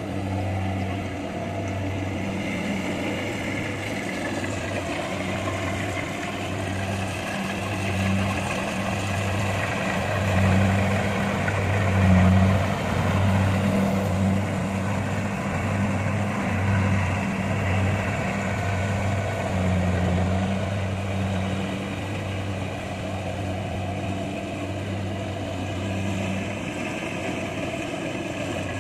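Kubota rice combine harvester running steadily: a low diesel engine hum with a noisy mechanical rush from the machine above it, swelling slightly around the middle.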